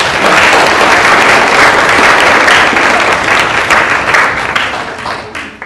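Audience applauding: a loud, steady round of clapping that dies away near the end.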